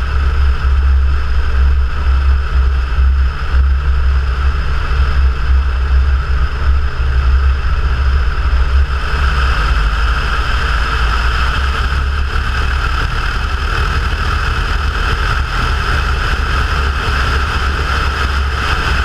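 Cessna 172 engine and propeller droning steadily, with a deep rumble under a steady higher tone; a little past halfway the higher tones grow stronger.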